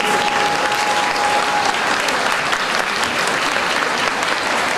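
Spectators applauding, a dense, steady clapping. A single steady held tone sounds over it and stops a little under two seconds in.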